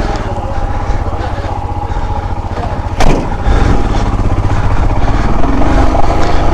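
Royal Enfield Himalayan 411's single-cylinder engine idling with a steady low pulse, with a sharp knock about three seconds in.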